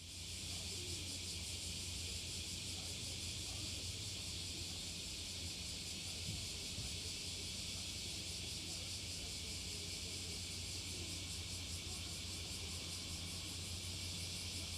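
Steady background noise that starts abruptly: an even high hiss with a low hum beneath it, unchanging throughout.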